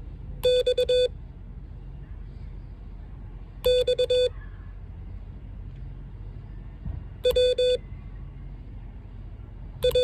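Morse code sidetone beeps from a Mountain Topper MTR3B CW transceiver keyed with a paddle: four separate letters, each a quick run of dots and dashes, about three seconds apart, sent as a copying test.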